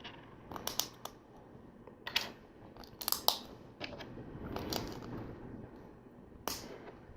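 Plastic LEGO pieces clicking and clattering as they are picked out of a pile and pressed together, in a series of sharp, irregular clicks.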